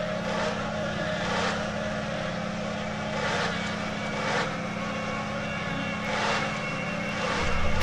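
A dark ambient drone soundtrack: a steady low hum with whooshing swells of noise every second or two, and a deep low rumble coming in near the end.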